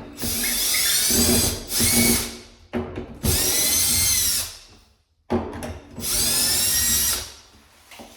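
Power drill driving out door hinge screws: four bursts of motor whine, each rising and falling in pitch as the trigger is squeezed and eased.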